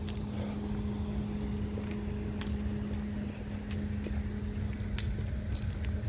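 A steady low mechanical hum, with a few faint sharp clicks scattered through it.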